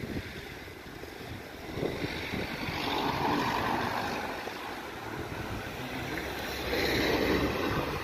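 Wind buffeting the microphone, with road traffic passing; the traffic noise swells twice, once a few seconds in and again near the end.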